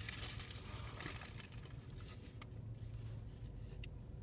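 Faint crinkling and a few soft ticks from a paper sandwich wrapper as a sandwich is handled and lifted off it, over a low steady hum.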